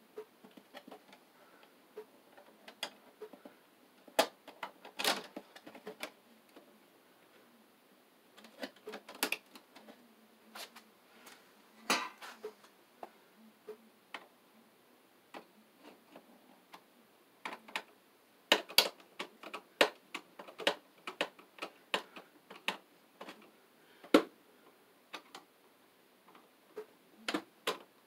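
A bare ground wire being bent and pushed into place among the wires of a breaker panel: irregular small clicks, taps and scrapes of wire against wire and metal, coming in bunches.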